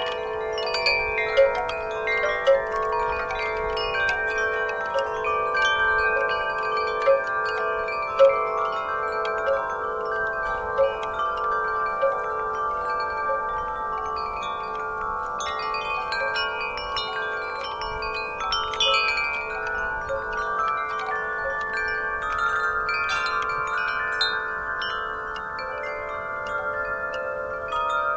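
Wind chimes ringing continuously in the breeze: many sustained, overlapping tones struck irregularly, with clusters of brighter strikes in the first half.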